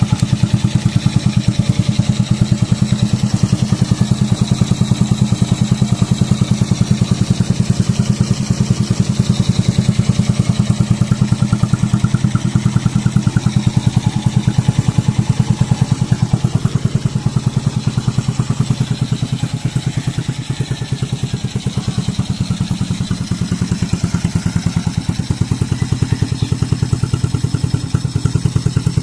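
Suzuki Raider J Pro 110cc four-stroke single-cylinder engine, pure stock, idling steadily with an even pulse, fitted in a Yamaha Chappy frame.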